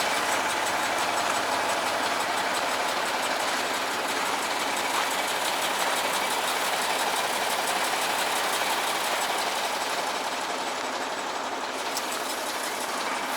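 Motor grader's diesel engine idling steadily.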